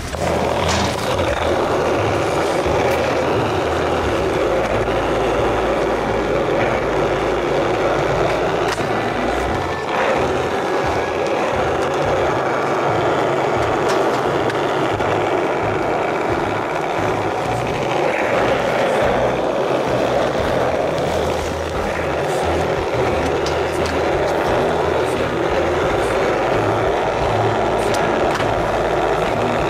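Skateboard wheels rolling on asphalt, with music playing over it.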